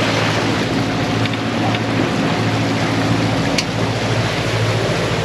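A sailboat's inboard engine drones steadily while motoring under way, with wind and water noise over it.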